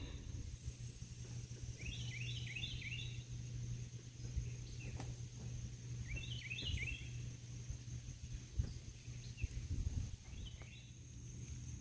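Outdoor garden ambience: a songbird repeating a short phrase of quick, falling chirps three times, about four seconds apart, over a steady high-pitched whine and a low hum.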